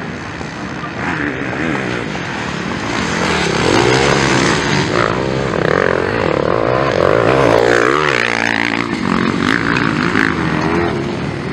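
Several motocross bikes racing: engines revving hard, pitch repeatedly rising and falling with the throttle. It gets louder about four seconds in, as the bikes come closer.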